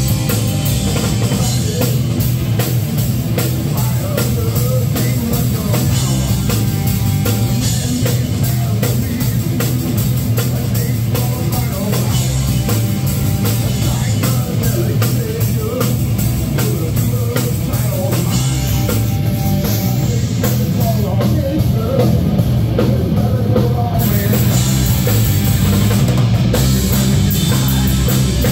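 A rock band playing loudly live: electric guitars over a driving drum kit.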